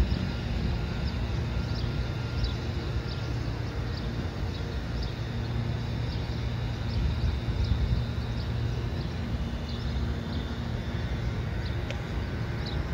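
Outdoor ambience: a steady low rumble with a faint steady hum, like distant traffic, and short high chirps of small birds now and then.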